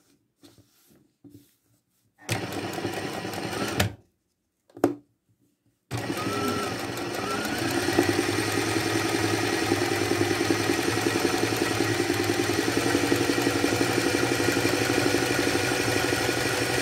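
Sewing machine stitching free-motion embroidery while the fabric is guided by hand. It runs briefly about two seconds in, stops, then starts again about six seconds in and keeps running at a fast, steady stitch rate.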